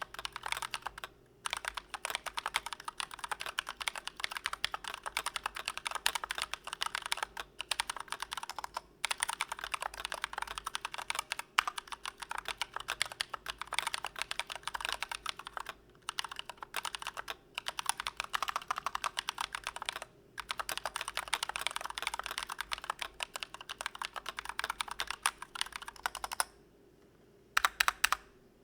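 Fast, continuous typing on a Glorious GMMK Pro mechanical keyboard, a dense run of key clicks broken by a few brief pauses and a longer one near the end.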